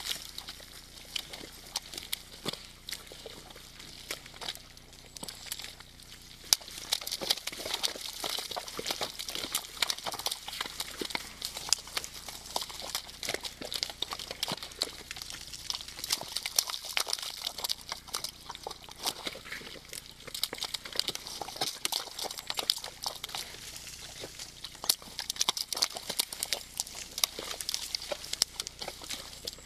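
Red deer moving and lying in a mud wallow: wet mud squelching and splashing under hooves and bodies, a dense run of small clicks and crackles that gets busier about six seconds in.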